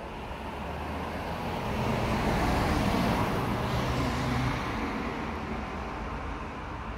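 Cars driving past close by on an asphalt road. The tyre and engine noise swells to a peak about three seconds in, then fades as they move away.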